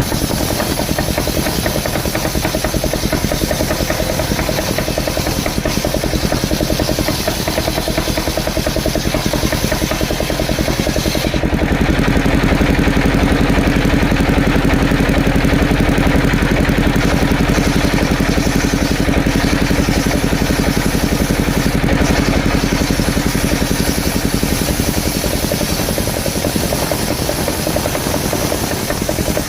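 Small engine running steadily at a constant speed, with a slight change in tone about eleven and a half seconds in.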